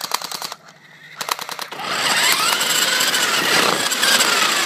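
Battery-powered airsoft machine gun mounted on an RC car firing two short rapid bursts of clicks. It is followed by the toy car's electric drive motor whining, rising and then falling in pitch, with tyre noise as the car drives across asphalt.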